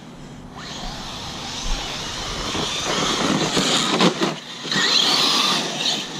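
Arrma Kraton 6S brushless electric RC truck driving, its motor whine rising and falling with the throttle and growing louder from about a second in.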